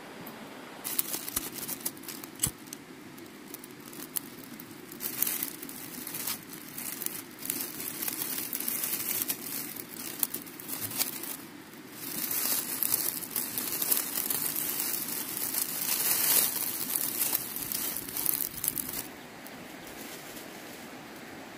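Dry vegetation crackling and rustling in irregular bursts as it is handled, starting about a second in, heaviest in the second half and stopping near the end.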